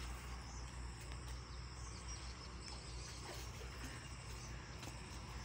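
Field ambience: insects chirping steadily, with a low steady hum underneath.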